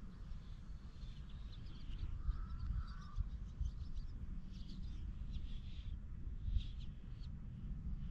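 Small birds chirping and trilling in short repeated calls over a steady low rumble.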